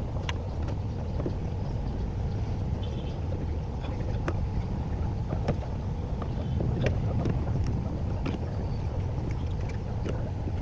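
Steady low rumble of a car on the move, with scattered sharp clicks every second or so.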